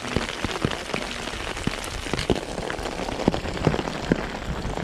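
Heavy downpour: steady rain with many sharp, irregular taps of drops striking close by.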